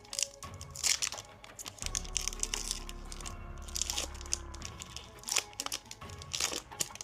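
Foil Pokémon card booster pack wrapper crinkling and tearing as it is opened, in irregular rustles, over background music.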